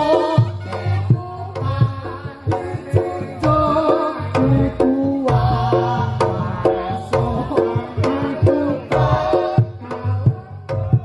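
Reog Ponorogo ensemble playing: rapid hand-drum strokes and sustained low gong tones under a wavering, reedy lead melody.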